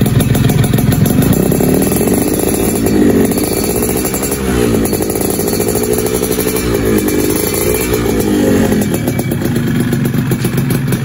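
Yamaha F1ZR two-stroke single-cylinder engine running through a new Cminx aftermarket 'standard racing' muffler, blipped up and down in revs several times from idle. Its exhaust note is crisp.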